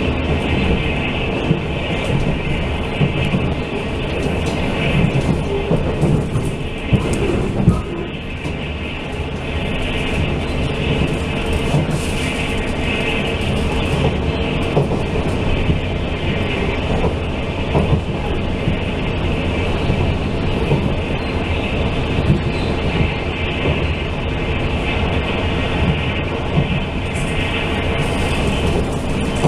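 Inside a Taiwan Railway Fu-Hsing express passenger coach running at speed: a steady rumble of the car with wheels clicking over the rails, and a few louder knocks about six to eight seconds in.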